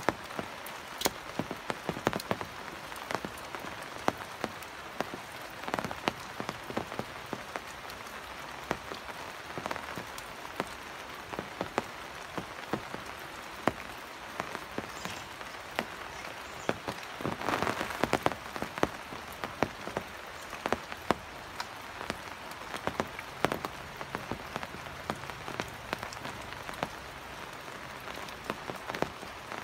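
Steady rain, with the sharp taps of individual drops landing close by, a few a second, and a brief heavier spell about two-thirds of the way through.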